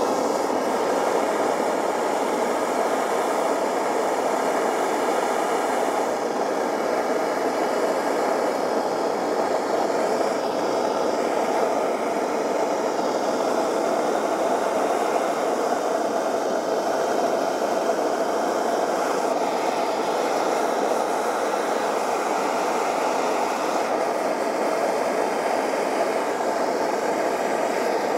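Bernzomatic propane torch flame burning steadily with a constant rushing noise as it heats a copper pipe fitting to melt lead-free solder into the joint.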